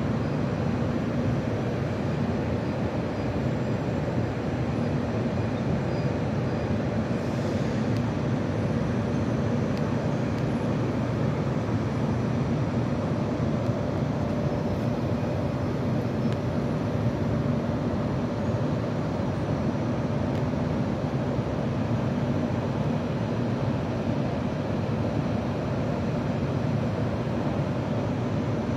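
Small camera drone's propellers running: a steady whirring hum with a constant low drone and a higher whine.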